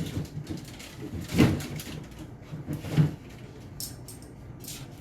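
Handling knocks from a container of store-blended grapefruit juice being picked up and moved about: a sharp knock at the start, then two duller clunks about a second and a half and three seconds in.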